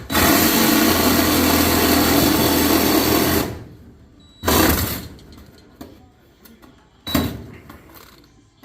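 A power tool cutting through a truck cab's sheet-metal floor, running steadily for about three and a half seconds, then two short bursts near the middle and about 7 seconds in as the cut is finished.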